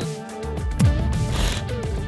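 Background music, with a falling low swoosh effect a little under a second in and a short burst of hiss soon after, as the music moves into the outro.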